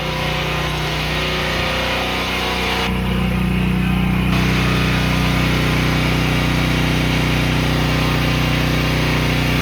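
Kohler gas engine of a hot-water pressure washer running steadily, with an even hiss over the engine hum; the engine note grows a little stronger about three seconds in.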